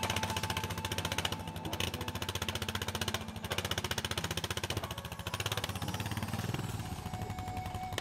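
ATV engine running at low throttle, its exhaust pulsing rapidly and evenly, as the quad is driven off a pickup bed down a loading ramp.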